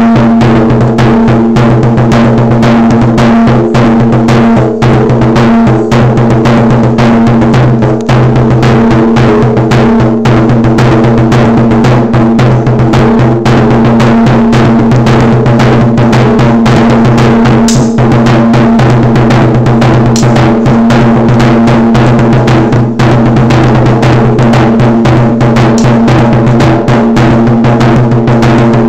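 A drum played in a fast, dense run of strokes right at the microphone, very loud and overloaded, with a steady low ring under the hits.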